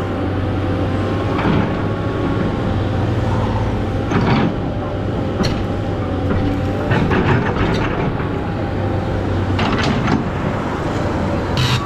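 SANY SY215C excavator running steadily with a constant engine hum and a whine, broken by several short knocks and clatters.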